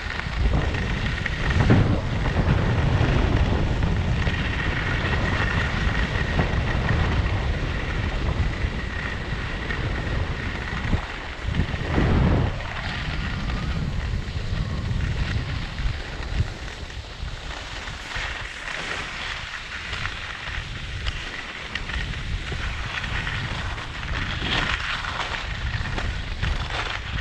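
Wind buffeting a GoPro's microphone during a fast ski descent, with skis scraping over freshly groomed snow, swelling louder a few times.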